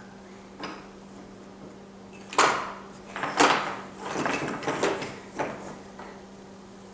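A run of sharp knocks and clatters, as of hard objects being banged or handled, starting about two and a half seconds in; the first two are the loudest and the rest follow over the next three seconds. A faint steady hum lies underneath.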